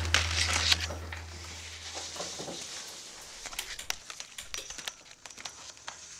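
Music fading out over the first couple of seconds, leaving faint, scattered crackling clicks.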